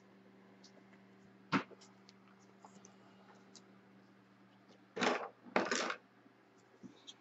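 Trading cards being handled on a table: a single sharp tap about a second and a half in, then two short scraping slides near the end. Under it a faint steady electrical hum.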